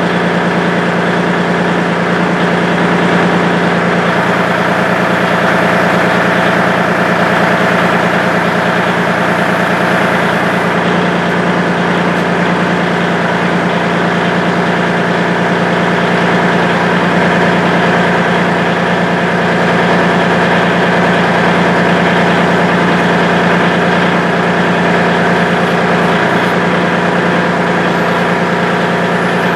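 Kubota L2501 tractor's three-cylinder diesel engine idling steadily.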